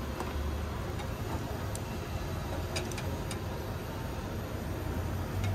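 A few light clicks and taps of chopsticks and utensils against dishes, the clearest around three seconds in, over a steady low hum of room noise.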